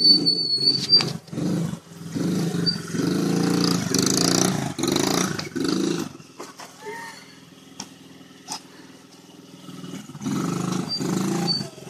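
Small 50cc mini dirt bike engine being ridden: it revs up in repeated surges, drops to a quieter steady idle for a few seconds in the middle, then revs again near the end.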